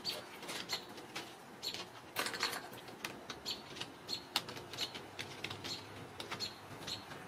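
Irregular clicks, taps and scrabbling of Ragdoll kittens' claws and paws on a wooden cat tree and its shelves as they climb and play, with a few short high chirps among them.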